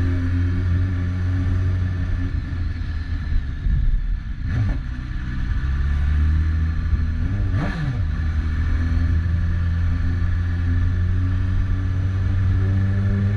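BMW S1000RR's inline-four engine running under way, a steady low drone whose pitch sweeps briefly about four and a half and seven and a half seconds in, then climbs slowly near the end.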